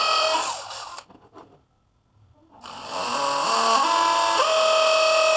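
Cordless drill boring into the ceiling: the motor winds down and stops within the first second. About halfway through it starts again, its pitch climbing as it speeds up, then runs steadily at full speed.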